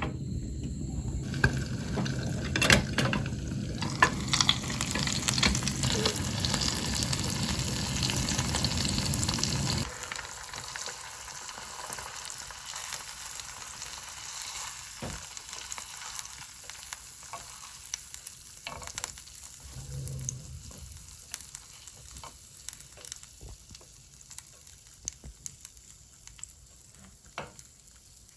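Chicken-skin gyoza frying in a pan: a steady sizzle with scattered crackles and pops over a low rumble. About ten seconds in, the rumble stops and the sizzle carries on quieter, slowly fading, still with occasional pops.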